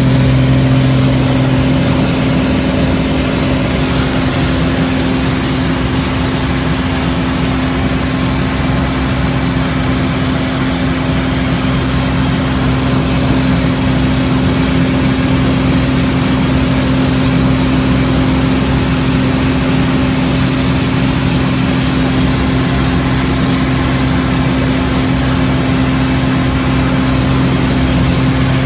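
Pitts aerobatic biplane's piston engine and propeller running steadily in flight, heard from inside the cockpit as a loud, even drone with rushing air over it.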